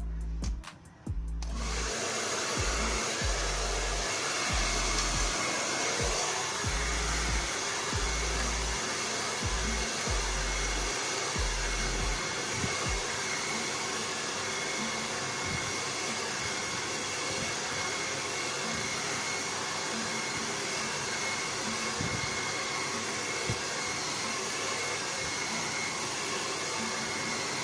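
Handheld blow dryer starting suddenly about a second and a half in, then running steadily with an even hiss as it dries hair.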